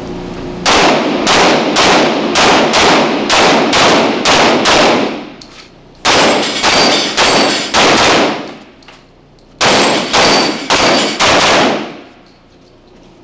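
Rapid semi-automatic pistol fire in an indoor range, in three quick strings of shots about two and a half a second, each shot echoing off the walls. About ten shots come in the first string, six in the second and five in the third, with short pauses between them.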